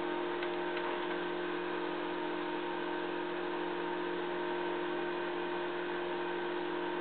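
Steady hum carrying several fixed tones, with a few faint clicks about half a second and a second in as the pi-filter bandswitch, a rotary switch on a homebrew tube linear amplifier, is turned.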